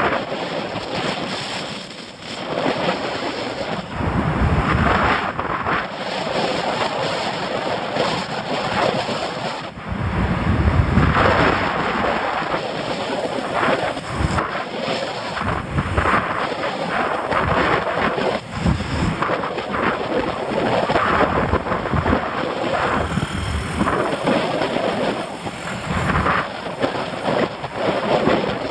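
Wind buffeting the microphone of a camera riding along on a bicycle, a loud rushing noise that swells and drops in gusts.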